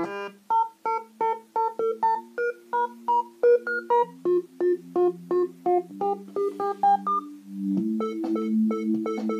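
Oscilloscope music: synthesized electronic tones whose two stereo channels draw the shapes on an oscilloscope's XY screen. A run of short, clipped notes, about three or four a second, plays over a held low tone, then settles into a steadier sustained chord near the end.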